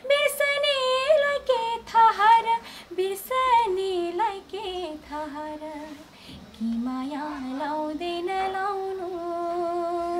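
A woman singing a Nepali folk-pop song unaccompanied: a single voice with ornamented, wavering lines, dropping low a little past the middle and then holding a long note near the end.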